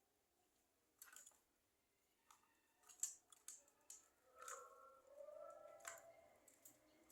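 Faint sounds from a caged Javan myna: a few sharp clicks, then a soft, low, two-second sound from the bird.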